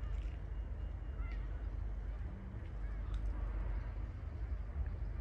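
Wind rumbling on the microphone, a steady low buffeting, with a few faint short calls above it.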